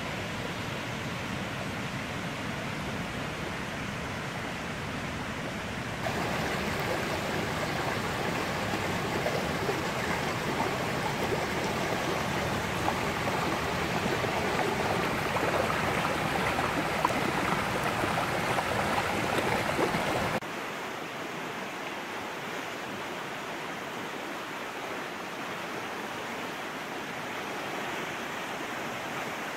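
Shallow stream running over stones and gravel, a steady rush of water. It gets louder about six seconds in and drops back suddenly about twenty seconds in.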